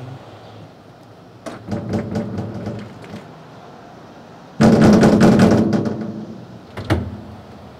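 Locked metal double doors being yanked and shaken against their lock: a few light clicks of the handles first, then about two seconds of loud rattling and banging about halfway through, and one more clack near the end.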